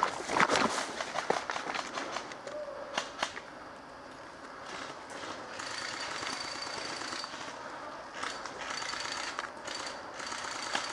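Footsteps crashing through forest undergrowth in the first second, then airsoft guns firing: a few sharp single shots, followed by longer stretches of rapid automatic fire from about five seconds in.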